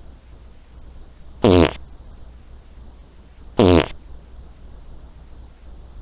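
A person farting: two short, loud, pitched farts about two seconds apart, each lasting a fraction of a second.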